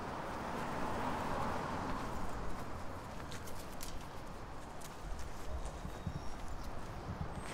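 Steady street noise with a run of hard steps clicking on the pavement, starting about two seconds in.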